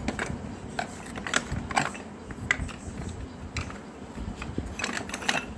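Broken unglazed clay pots clinking and scraping against one another as a hand rummages through a pile of them: a string of separate light clinks, with several close together near the end.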